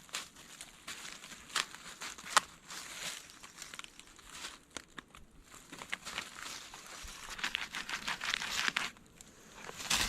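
Irregular rustling and crinkling with scattered sharp clicks and snaps, growing busier in the second half, then a short lull near the end.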